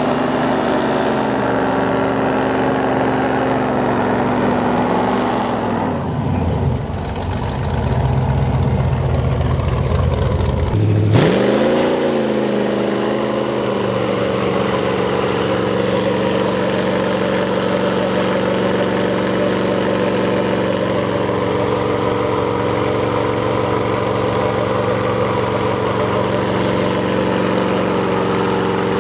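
Pickup truck engines revving hard as the trucks pull against each other in a tug-of-war. The revs swing up and down over the first several seconds, change abruptly about eleven seconds in, then hold high and steady through the second half.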